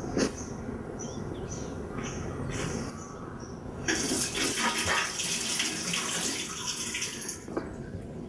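Water running or splashing steadily for a few seconds in the middle, starting and stopping fairly abruptly.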